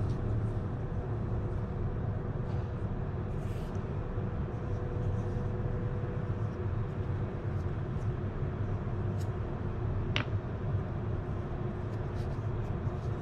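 Steady low machinery rumble, with a few faint light clicks of a plastic pipe and cap being handled on a workbench, the clearest about ten seconds in.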